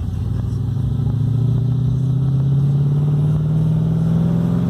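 Holden VB Commodore's engine and exhaust, loud, pulling under acceleration with its pitch rising gradually.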